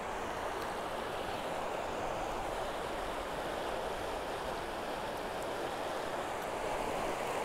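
Steady wash of small lake waves lapping against a concrete shore.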